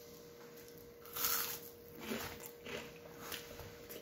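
A person eating akara (fried bean fritters): soft chewing and mouth noises come in a few short bursts, the loudest a little over a second in.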